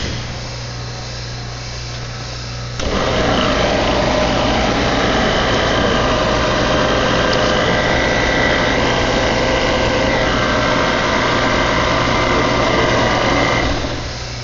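Electric refrigerant-service pump starts abruptly about three seconds in, runs steadily with an even whine, and cuts off near the end as its built-in high-pressure safety shuts it off automatically.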